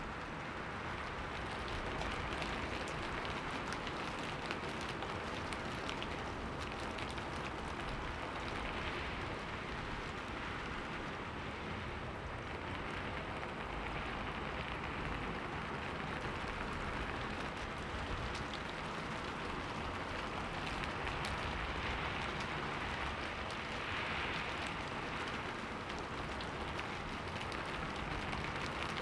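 Steady rain falling against a window, a dense even patter of drops that swells and eases a little now and then.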